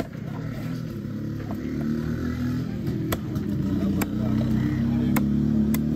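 A motor vehicle engine running and growing louder, with a few sharp knocks of a cleaver chopping fish on a wooden block.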